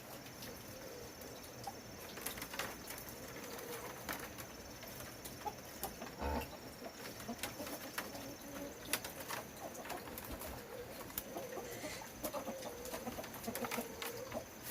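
Birds giving low, wavering cooing calls, strongest near the end, among scattered sharp clicks and taps, over a faint steady high-pitched whine.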